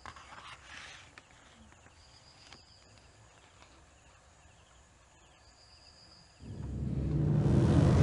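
Faint paper rustling as photographs are slid out of an envelope, then low quiet with a faint high tone now and then. About six and a half seconds in, a deep dramatic soundtrack swell rises and builds to a peak at the end, leading into tense music.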